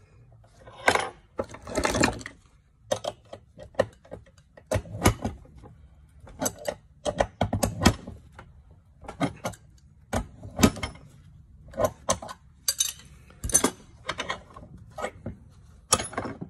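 Irregular metallic clinks, taps and short scrapes of small hose fittings and hand tools being handled while a quarter-inch crimp fitting is fitted to a solution hose.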